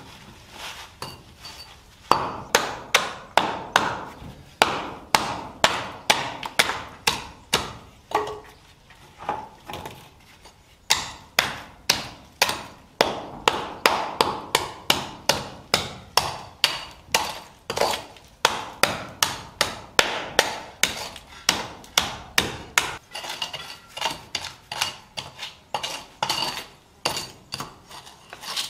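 Hand hammer striking repeatedly at a steady pace, about two to three sharp blows a second, with a brief pause midway and lighter blows near the end.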